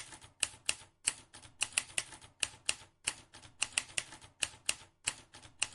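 Typewriter keys clacking in an irregular string of sharp strokes, about three or four a second.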